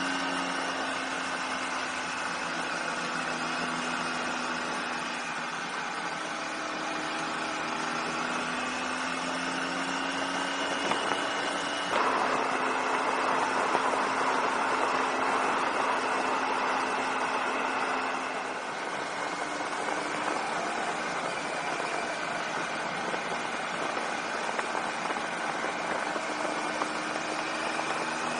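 Triumph Tiger 800 XCA's three-cylinder engine running at a steady cruise, its pitch drifting gently up and down with road speed under a haze of wind and road noise. A little before halfway the rush of noise jumps up suddenly and stays louder for several seconds before easing off.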